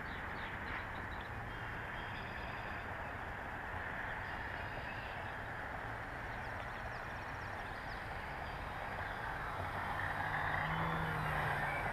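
Radio-controlled Piper J-3 Cub float plane's motor and propeller droning at part throttle in slow flight with landing flaps down. It grows louder about ten seconds in as the plane comes by low over the water.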